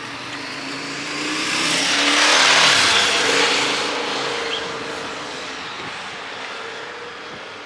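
A motor vehicle passing close by, its engine and tyre noise rising to a peak about two and a half seconds in and then fading away.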